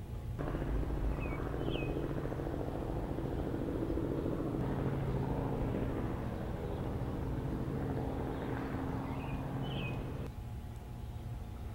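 Diesel engine running steadily at an even pitch, with two short bird chirps over it. The engine sound cuts off abruptly about ten seconds in, leaving a quieter background.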